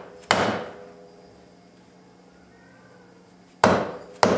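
A claw hammer strikes a steel driver set in the bore of a front brake caliper, knocking it further down into the bore. There are three sharp metallic blows, each ringing briefly: one just after the start and two close together near the end.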